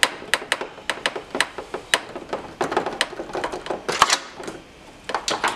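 Ratchet clicking about three times a second as a headlight mounting nut is backed off, pausing about four seconds in.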